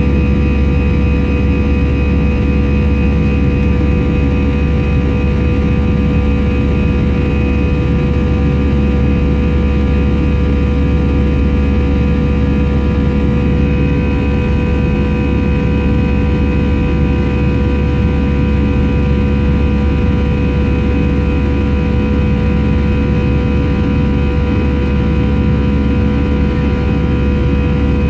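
Airliner cabin noise in flight: a steady, loud drone of engines and rushing air, with several steady whining tones over it.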